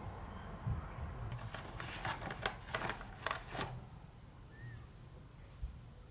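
Crisp crackling and clicking from a roll of washi tape and its paper packaging being handled: a close-up cluster of crackles lasting about two seconds, starting about a second and a half in, then fading to a few soft handling sounds.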